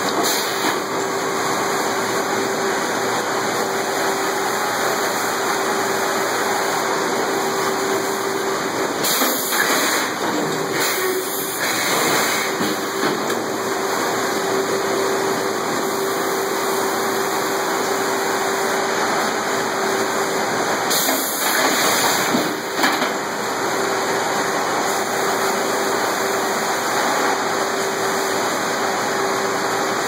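Sawmill head rig machinery running steadily with a constant hum, with two louder, hissier spells, one about nine seconds in and one around twenty-one seconds.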